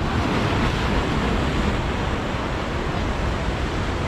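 Sea surf breaking and washing over the boulders of a rock breakwater, a steady rushing noise, with wind rumbling on the microphone.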